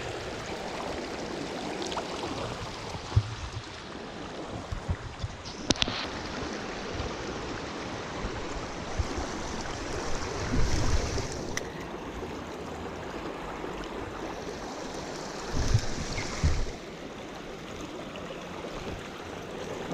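Tailwater creek running steadily, a continuous rush of flowing water, with a few dull low thumps about three, eleven and sixteen seconds in.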